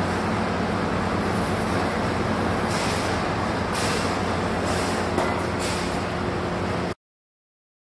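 Vicon TDX rollformer running with a steady motor hum while a sheet-metal panel passes through its outboard rolls and is formed into a large standing seam. Hissing metal-on-metal scraping and rattling come up twice in the second half, with a light knock. The sound cuts off abruptly about seven seconds in.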